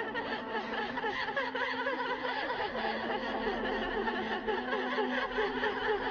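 Eerie chorus of many overlapping, chuckling laughs, with a steady low hum beneath them.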